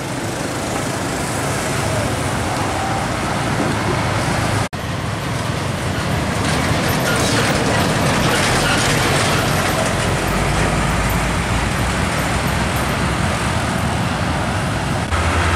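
Old Mercedes-Benz diesel trucks driving past in road traffic: a steady low engine rumble under road and tyre noise. The sound drops out for an instant about five seconds in.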